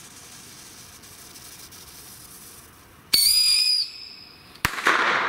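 A mini whistle rocket launching with a short high-pitched whistle about three seconds in, under a second long. About a second and a half later its bang goes off with a sharp crack and a long echo.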